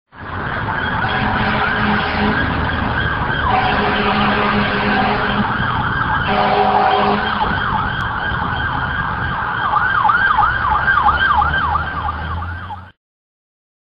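Several emergency vehicle sirens wailing at once over a low rumble, one switching to a fast yelp of about three swoops a second in the last few seconds. The sound cuts off suddenly near the end.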